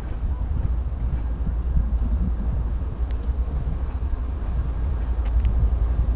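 TE33A diesel-electric locomotive's GEVO V12 diesel engine running with a steady low rumble, with a few faint clicks midway.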